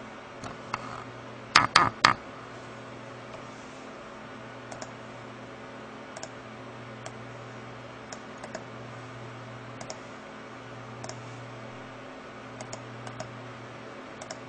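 Computer keyboard keys clicking: three loud keystrokes about a second and a half in, then scattered light key taps, over a steady low electrical hum.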